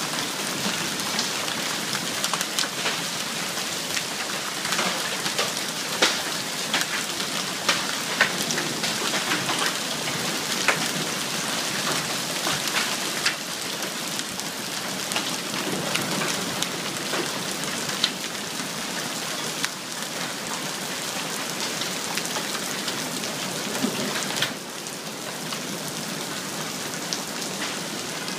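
Hail and rain pelting down in a dense, steady hiss, peppered with sharp cracks of individual large hailstones striking. The downpour eases slightly near the end.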